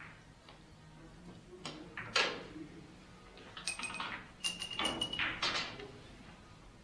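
Billiard balls clicking on a pin-billiards table: a sharp knock about two seconds in, then a cluster of knocks between about four and five and a half seconds, some of them ringing briefly.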